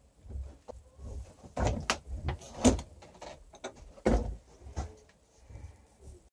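Handling noise: a string of sharp knocks and clunks, about half a dozen, with a low rumble between them, as things are put down and the camera is reached for and handled.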